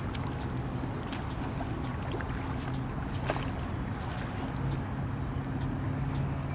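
A motor running steadily with a low hum that rises slightly in pitch about two-thirds of the way in, over a steady rushing noise.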